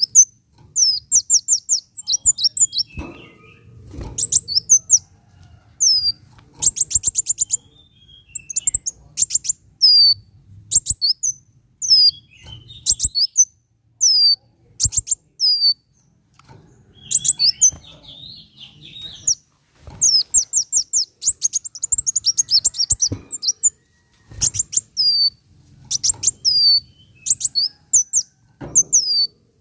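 Kolibri wulung (a sunbird) singing: rapid, high-pitched chirps that sweep down in pitch, in quick runs and short trills with brief pauses between phrases.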